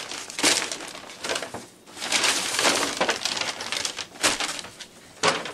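Paper takeout bags rustling and crinkling as they are handled, opened and unpacked, in irregular bursts.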